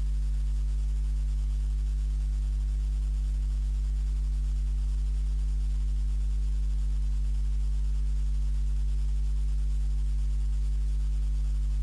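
Steady electrical mains hum: a low 50 Hz buzz with higher overtones, unchanging in level and pitch.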